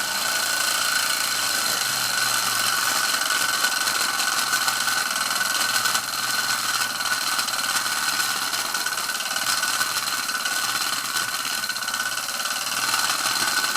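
Ernest Plank upright toy steam engine running fast and steady with no load, a rapid even beat over a continuous hiss.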